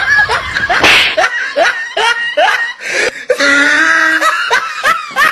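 Comic fight sounds: a quick run of slaps and hits, each paired with a short sliding cry, ending abruptly.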